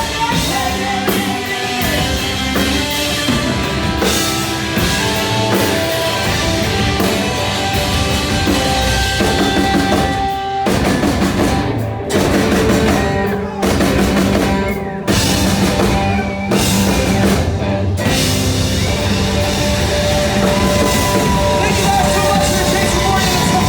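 Rock band playing live with electric guitar and a drum kit, the band hitting several sharp stops together partway through before playing on.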